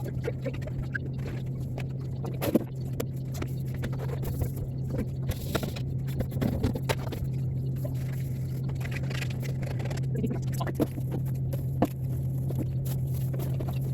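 Scattered clicks, light knocks and scraping from items being handled and scrubbed while cleaning out a fridge, over a steady low hum.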